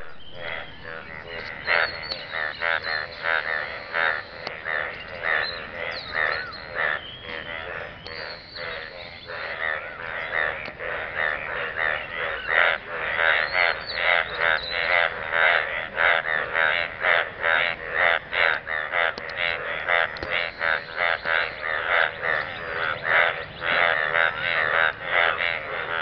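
A chorus of many frogs croaking at once, their short, pulsing calls overlapping without a break.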